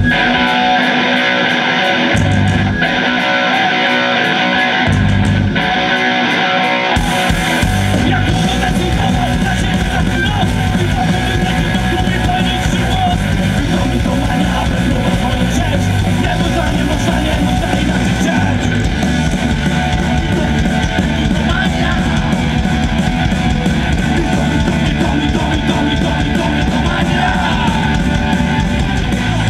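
Live punk rock band: electric guitar alone, punctuated by short hits from the whole band with bass and drums. About seven seconds in, the full band comes in and plays on steadily.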